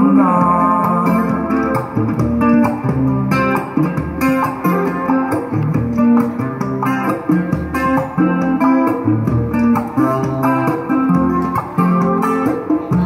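Acoustic guitar strumming chords, played through a PA, with a hand drum keeping a steady beat, in an instrumental passage of a Chinese folk-style song; the last sung note fades out right at the start.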